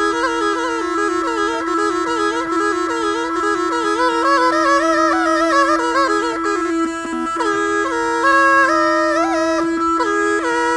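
Murli (been), the snake charmer's gourd pipe, played solo: one pipe holds a steady drone while the other plays a quick, ornamented melody in rapid turns. About two thirds of the way through the tune dips low for a moment, then moves to longer held notes higher up.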